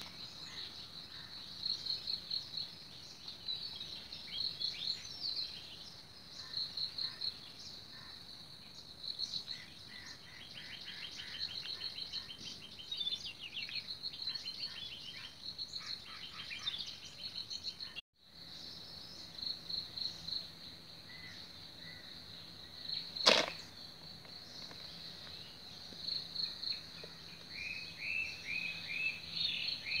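Insects chirping in a steady, pulsing high trill, with birds calling in short chirp series over it. One sharp click about two-thirds through is the loudest sound, and the sound drops out briefly just past halfway.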